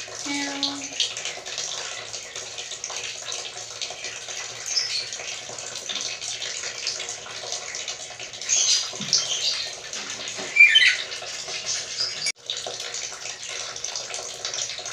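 Black-capped lory giving a few short, high-pitched squawks, about nine and eleven seconds in, over a steady background hiss.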